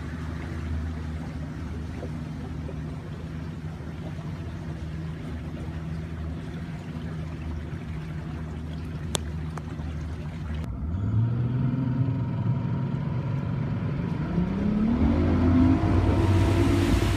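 Boat's outboard motor running steadily at low speed. About eleven seconds in the sound changes abruptly, and the motor speeds up, its pitch rising for several seconds before it holds steady at a higher speed.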